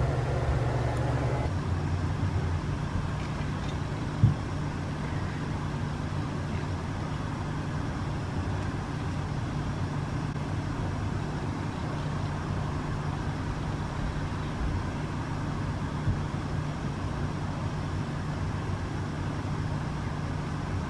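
Steady low mechanical hum, with a sharp knock about four seconds in and a softer one about sixteen seconds in.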